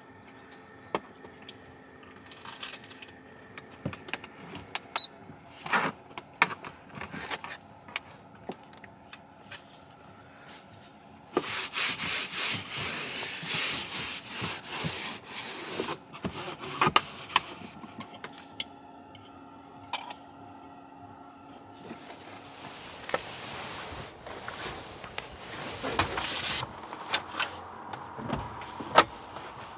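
Objects being handled: scattered clicks and knocks, with two longer spells of rustling, one in the middle and one near the end.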